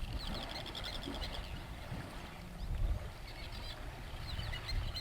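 Birds chirping, with a rapid run of high chirps in the first second or so and more near the end, over a low steady rumble.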